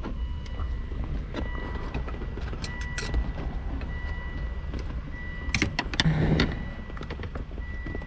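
Flat-head screwdrivers clicking and scraping against the shift fork retaining clip in a car's gear shifter assembly as it is pinched and pried, with a louder scraping rattle about six seconds in, over a steady low hum.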